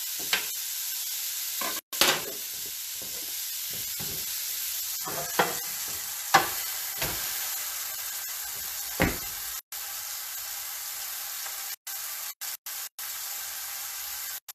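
Shell-on shrimp searing in a hot skillet under a weighted pan, a steady sizzle, broken by about five sharp knocks of metal pans and utensils in the first nine seconds. The sound cuts out briefly several times in the second half.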